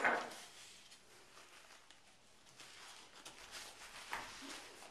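A sudden sharp sound at the start, then faint scattered clicks and rustling as a Shetland sheepdog eats from a plate.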